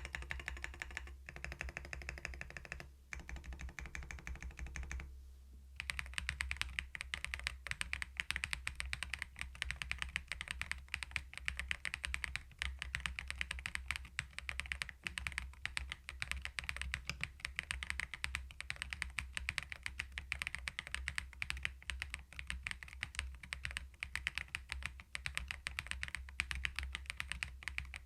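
Fast, continuous typing on a CoolKiller VIVID67 full-aluminium mechanical keyboard fitted with its stock Peach switches, a dense stream of key clicks. Short music plays before the typing starts about five seconds in.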